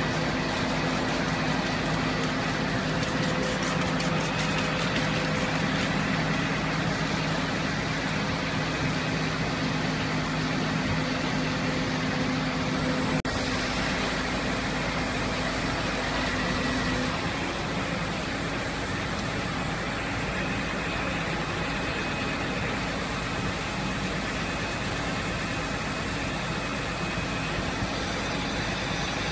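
Fire engines running at a steady idle with street noise; a low engine drone drops away about halfway through.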